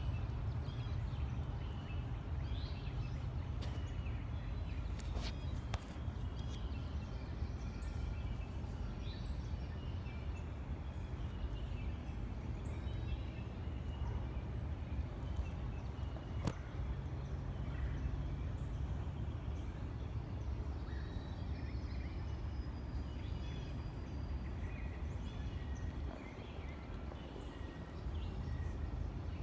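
Swamp ambience: a steady low rumble with many short bird chirps and calls scattered throughout, and a few faint clicks.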